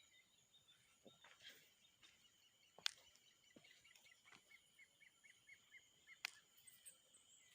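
Near silence: faint outdoor ambience with a faint bird chirping a quick run of short notes past the middle, and two sharp clicks, one about three seconds in and one about six seconds in.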